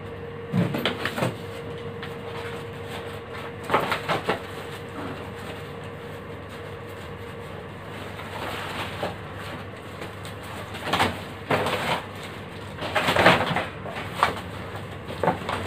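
Clothes and a bag rustling and knocking against a wooden wardrobe's shelves as they are taken out, in several short bursts. A faint steady hum runs through the first few seconds.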